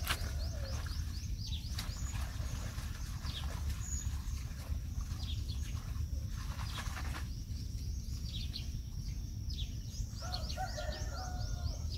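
Small birds chirping: quick runs of short, high, falling notes that come every second or two. Under them runs a steady high whine and a low rumble.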